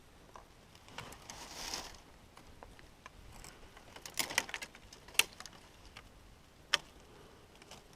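A brief rustle, then a handful of sharp clicks and taps, the loudest about five seconds in and again near seven seconds.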